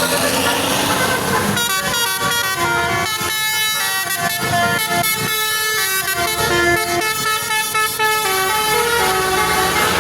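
A bus's Basuri telolet horn, a multi-tone air horn, plays a stepping melody from about a second and a half in for some seven seconds, over the noise of a vehicle on the road.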